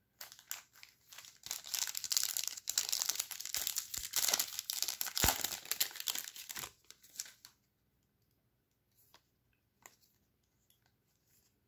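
Trading-card pack wrapper being torn open and crinkled, a dense crackling rip that stops about seven seconds in. A couple of faint clicks follow.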